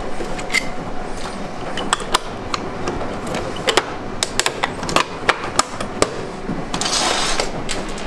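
Sharp plastic clicks and knocks as the drain-filter hatch cover on a washing machine's front panel is handled, fitted and pressed into place, with a short scraping rustle near the end.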